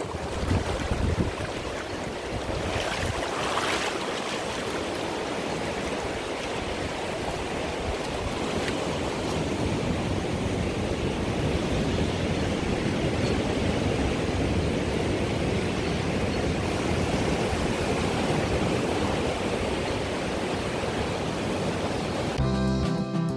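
Steady rush of sea waves and moving water at the shore, with a brief surge about three to four seconds in. Guitar music starts near the end.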